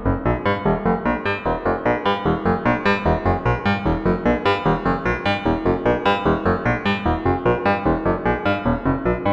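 Minimalist electronic music from a software wavetable synthesizer: a fast, even stream of short pitched notes, about five a second.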